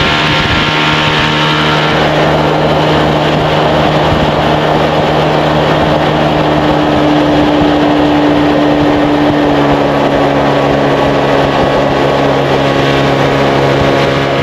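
1957 Kiekhaefer Mercury Mark 75 straight-six two-stroke outboard running at speed, a steady engine note over the rush of water from the boat's wake. The pitch eases down slightly about two-thirds of the way through.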